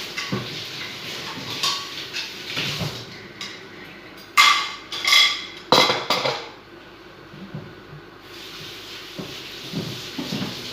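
Kitchenware clattering: small knocks, then three loud clanks of pots, dishes or utensils in the middle. Behind them runs a steady hiss that stops while the clanks sound and comes back near the end.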